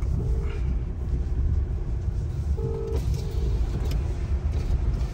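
Inside the cabin of an Isuzu V-Cross 4x4 diesel pickup on the move: a steady low rumble of engine and road noise. A faint pair of humming tones comes and goes a few times.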